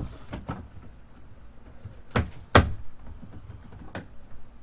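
A handful of short knocks and clunks from hand work on the kayak's thigh-brace hardware. The two loudest come close together a little past the middle, and a lighter one follows near the end.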